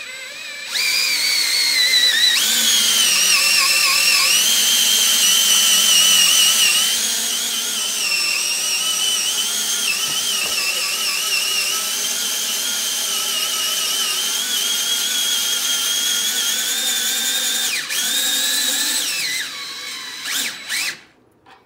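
A 20-volt cordless drill runs continuously, cranking the screw of a snowmobile service lift to raise a heavy four-stroke sled. Its motor whine wavers in pitch under the load, dips briefly and picks up again near the end, then stops.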